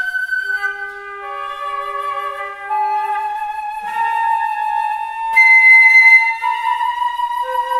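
Two concert flutes playing a contemporary duo in long, overlapping held notes, the pitches shifting slowly against each other. A loud high note sounds for a little under a second about five and a half seconds in.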